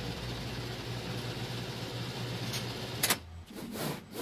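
Steady machine hum that cuts off just after a sharp click about three seconds in, followed by a couple of short scraping noises.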